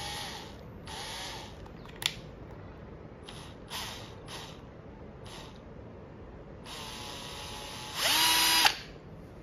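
Bosch GSR 120-Li 12 V cordless drill/driver running unloaded in short trigger pulls, its motor spinning up and winding down several times. Near the end a longer run climbs to a louder, higher-speed whine for under a second, then stops.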